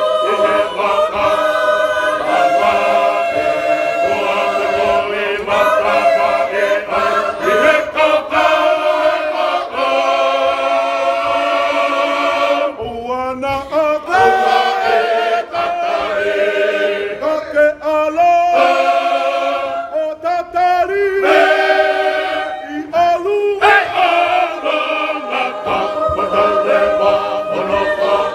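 Tongan church choir singing a hymn in several parts, holding long sustained chords. For a stretch in the middle the sound thins to fewer voices with a wavering vibrato before the full choir comes back.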